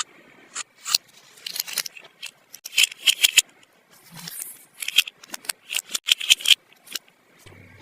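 Close-miked unboxing of a small toy set: a quick series of sharp clicks, snips and crinkly scrapes from plastic pieces and packaging being handled.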